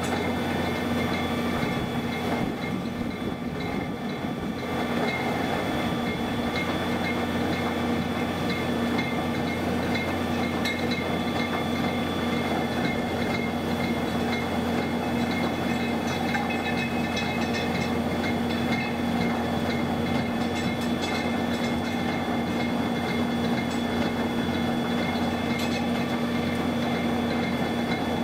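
Wheel loader running with its REMU WL 450 screening bucket screening wood mulch: a steady mechanical hum of engine and hydraulics, with a constant fine rattle as the material is shaken through the screen.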